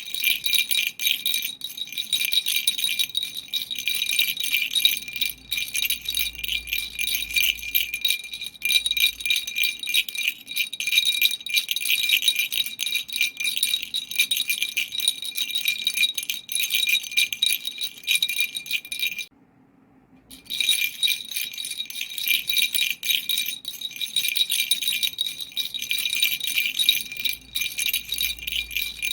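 A baby's toy rattle shaken continuously, a fast jingling with a steady bell-like ring. It stops for about a second some two-thirds of the way through, then starts again.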